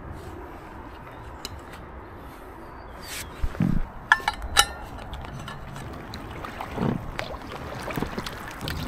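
Two sharp, ringing metal clinks a little over four seconds in from a stainless steel drinks flask being handled, with a few softer knocks after. Under them, a steady hum of distant road traffic.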